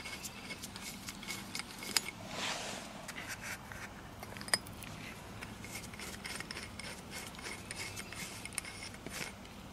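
Small metallic clicks and rubbing as a nut is spun off a steel bolt by a gloved hand and the bolt is worked out of the bracket of an earth anchor installation tool. Two sharper metal clicks stand out, about two seconds in and again about four and a half seconds in.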